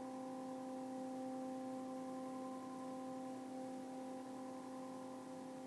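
Steady computer-generated tone from a Max/MSP patch, holding one pitch near middle C with its overtones.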